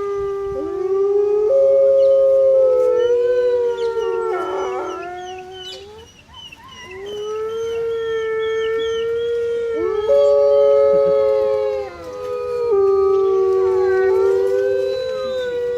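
Wolves howling in chorus: several long, overlapping howls, each held at a steady pitch and stepping up or down, with short high yipping calls mixed in. The chorus fades briefly about six seconds in, then swells again.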